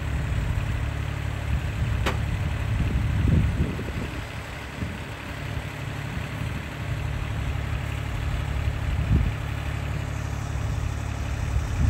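Boom lift's engine idling steadily with a low hum, with a single sharp click about two seconds in.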